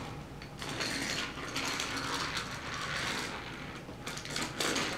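Diecast toy Thomas engine pushed by hand, its wheels rolling along plastic Take-n-Play toy track, with a short break near the end.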